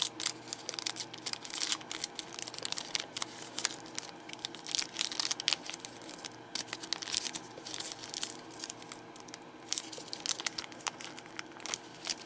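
Foil trading-card booster pack wrapper being torn open and crinkled by hand: an irregular run of crackling and tearing.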